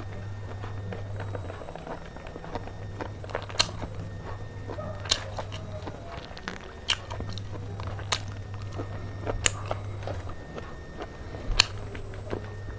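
A person eating pork belly and green chilies close to the microphone: chewing, with a sharp crunchy bite about every second and a half.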